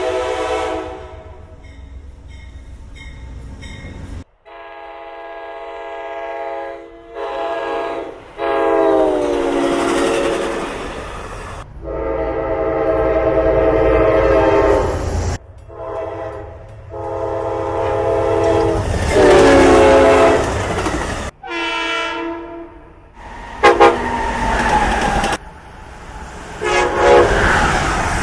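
Passenger locomotive air horns sounding in a string of cut-together clips: several long and short blasts, some dropping in pitch as the train passes, with the rumble and clatter of the train underneath.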